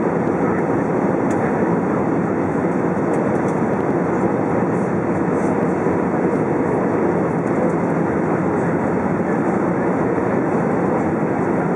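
Steady rush of airflow and jet engine noise inside the cabin of an Airbus A320 airliner on its approach descent, an even, unchanging roar.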